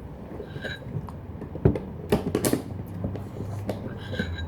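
Spoons clicking and scraping against ice cream bowls: a scatter of light, irregular clicks with one sharper knock about a second and a half in.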